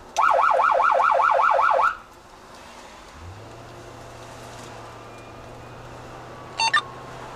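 Electronic emergency-vehicle siren sounding a fast yelp, about five rising sweeps a second, for just under two seconds and then cut off. Two short, high beeps follow near the end.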